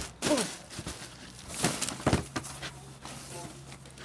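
Scuffing and rustling as plastic-wrapped packages are handled in a wooden truck bed, with two short bursts about a third of a second and nearly two seconds in. A brief voice-like sound comes right at the start, and a faint low hum comes in about halfway.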